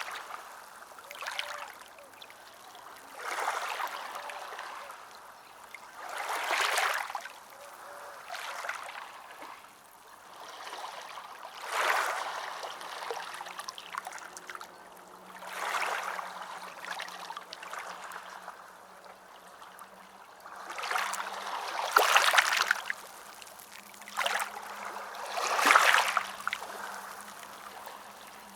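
Ocean waves washing in on a shore, a surge of hissing surf every few seconds between quieter spells, the biggest surges near the end.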